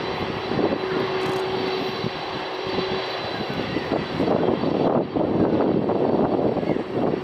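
Boeing 747-400F freighter's four jet engines running up for takeoff as it starts its takeoff roll. A steady roar with a whine over it at first grows louder and rougher from about four seconds in.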